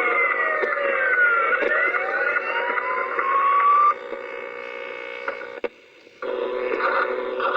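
Siren-like electronic wailing, several tones gliding up and down past one another, cutting off suddenly about four seconds in. After a brief drop-out near six seconds, a steadier buzzing tone pattern takes over.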